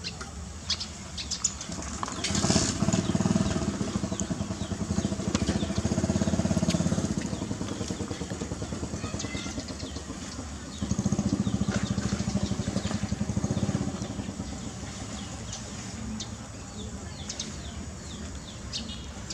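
Small motorcycle engine running as it passes by, twice: the first rises about two seconds in and fades out by about eight seconds, the second comes in suddenly just after ten seconds and fades a few seconds later.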